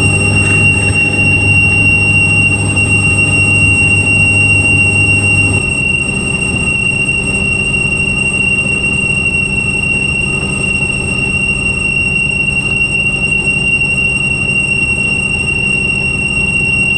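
Metal being cut on a Colchester lathe, with a steady high-pitched squeal from the cut over the machine's hum. The low hum drops about five and a half seconds in while the squeal holds.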